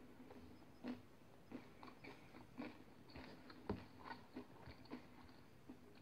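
Faint chewing of soft homemade semolina bread, with small irregular mouth clicks and smacks over a faint low hum.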